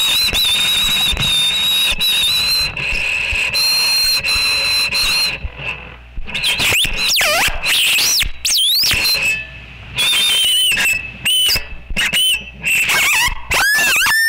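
Experimental noise music for violin and electronics: high, wavering whistle-like tones hold for about five seconds, give way to swooping squeals that glide up and down, then break into abrupt stop-start stutters with sudden dropouts.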